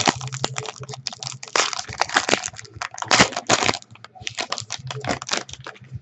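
Wrapper of a trading card pack being torn open and crinkled by hand, a dense run of irregular crackles and crumples.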